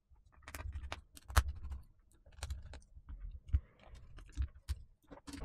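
A dozen or so irregular light clicks and taps from a T5 Torx screwdriver and small screws working on a MacBook Air's battery fixings.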